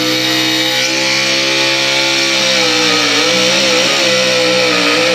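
Engine of a pulling vehicle running at high revs under load as it drags the sled down the track. The pitch holds high and steady, then wavers and dips slightly from about three seconds in.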